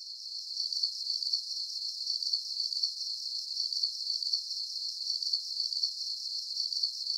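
Crickets chirping: a steady, high, evenly pulsing chirr at several pulses a second.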